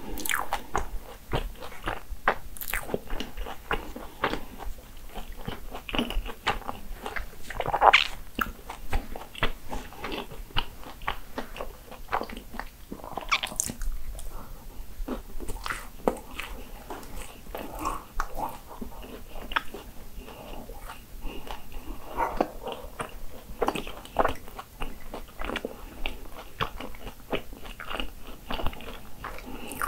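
Biting into and chewing crisp croffles (croissant-dough waffles): a dense, irregular series of crunches and mouth sounds, with a louder crunch about eight seconds in.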